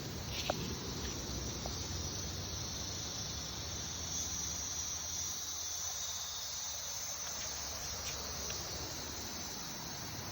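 Steady, high-pitched chorus of insects chirring without a break, with one faint click about half a second in.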